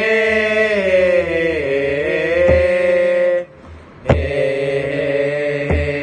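Thai royal barge chant (เห่เรือ): voices hold the long drawn-out 'เฮ' response of the verse, the pitch sliding down partway through. The singing breaks off briefly a little past halfway, then a new held note begins, with sharp knocks marking time every second or two.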